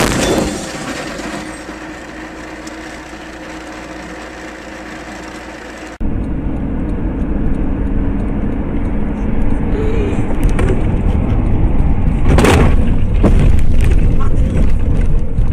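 Car interior and road noise recorded by a dashcam: a steady hum, then a louder low rumble at highway speed after an abrupt change about six seconds in. A sharp crash comes about twelve seconds in.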